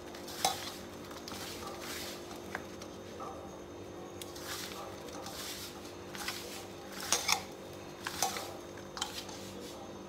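Hands working a crumbly atta-laddoo mixture in a stainless steel plate, scraping and rubbing it against the steel. Short, irregular scrapes and light clinks come every second or so, over a faint steady hum.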